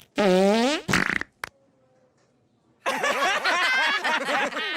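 Cartoon stomach growl sound effects: a short pitched gurgling growl whose pitch sweeps down, then after a pause of about a second and a half a longer, wobbling, warbling growl.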